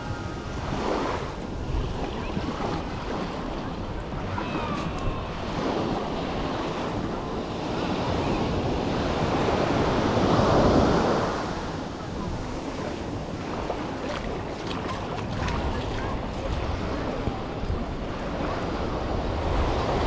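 Small waves breaking and washing up a sandy beach, a steady rushing surf with one wave swelling louder about halfway through. Wind buffets the microphone underneath.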